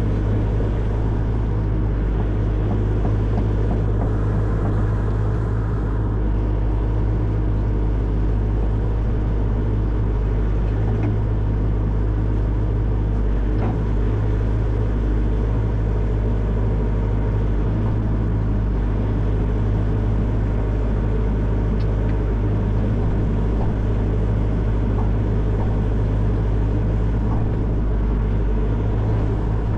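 Excavator's diesel engine running steadily under working load, a deep, even drone with no breaks.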